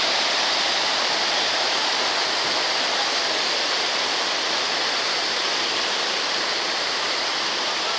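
Water rushing steadily over a river weir, a constant even roar without breaks.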